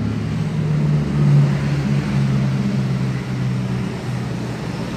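A motor vehicle engine running: a low, pitched hum that swells about a second in and eases off toward the end.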